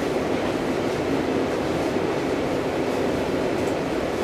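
Steady running rumble of a Tvärbanan A32 light-rail tram, a Bombardier Flexity Swift, rolling along its track, heard from inside the car. No clicks or wheel squeal stand out.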